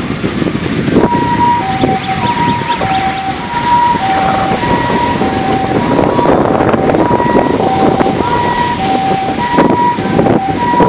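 A two-tone hi-lo siren switching between a higher and a lower pitch about twice a second, starting about a second in, over wind rushing on the microphone of a moving bicycle.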